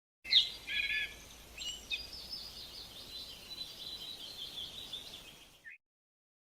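Nature sound effect of birds and insects calling: a few sharp bird chirps in the first second, then a steady high chirring trill, starting and cutting off abruptly.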